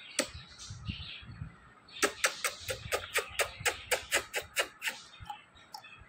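A rapid run of about fifteen wet kissing smacks, about five a second, as a man and his Indian ringneck parrot kiss beak to lips. A single smack comes just before the run.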